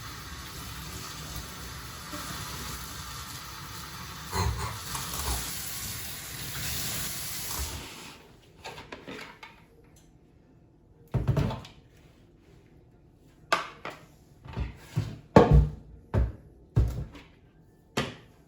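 Tap water running for about eight seconds, then a series of sharp knocks and clinks of kitchenware being handled.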